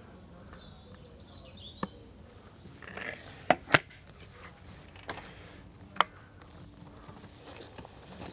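Remington Express .22 break-barrel spring air rifle being loaded and fired: a series of sharp mechanical clicks and cracks, loudest a pair about a quarter second apart some three and a half seconds in and another single crack at six seconds. Faint bird chirps are heard near the start.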